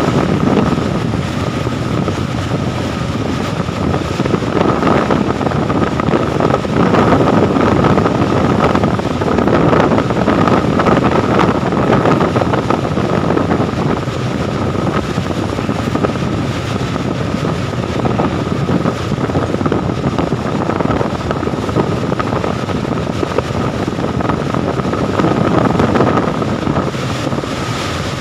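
A train running across a bridge: a steady loud rumble of wheels and carriages, with wind buffeting the microphone and a steady high whine.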